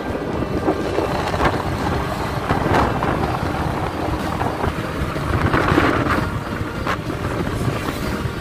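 Wind buffeting the microphone of a motorcycle riding at speed, over the steady noise of the engine and road.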